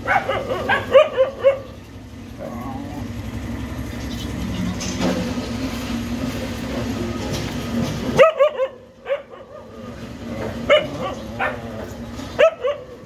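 Hungry puppies whining and yelping in short high cries as they try to nurse from their mother. For several seconds in the middle, a steady low mechanical hum takes over, then stops suddenly, and the puppy yelps start again.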